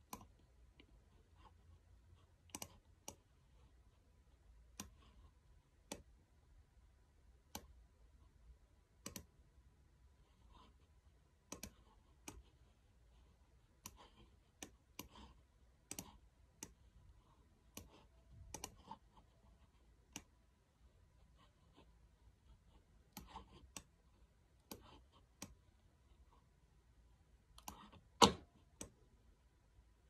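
Scattered single clicks at a laptop, about one every second or so at irregular intervals, with one louder click near the end, as the on-screen CAD model is worked with the pointer.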